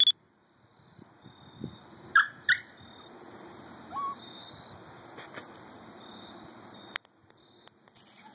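Beagle giving two short high yelps about two seconds in, then a brief rising howl about four seconds in, over a steady high insect drone.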